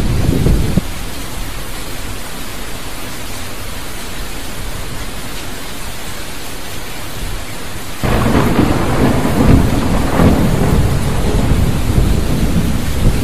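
Heavy rain falling in a steady hiss, with loud, low thunder rumbling over it. The rumbling cuts off abruptly about a second in, leaving only the rain, and comes back suddenly about eight seconds in.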